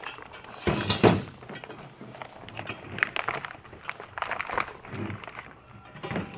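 Cardboard packaging being handled and opened: rustling and knocks, with the loudest crackling burst about a second in.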